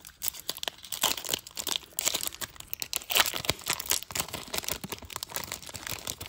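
Baseball card pack wrapper being torn open and crinkled by hand: a dense, irregular run of crackles and rustles.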